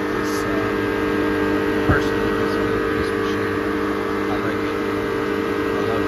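Steady mechanical hum with several fixed tones from running refrigeration equipment, with a single knock about two seconds in.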